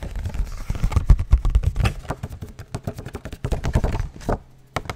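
Fast, aggressive crinkling and scratching of a white printed package held right against a foam-covered microphone: a dense run of sharp crackling clicks over a deep handling rumble, with a short pause near the end.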